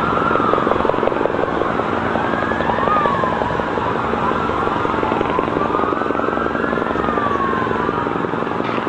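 Several emergency-vehicle sirens wailing at once, their pitches slowly rising and falling and overlapping, over a steady city din.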